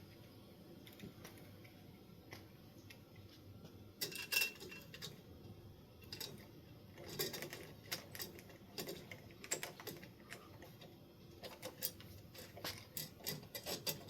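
Irregular small clicks and rattles of metal mounting hardware being handled, starting about four seconds in and coming in quick clusters toward the end.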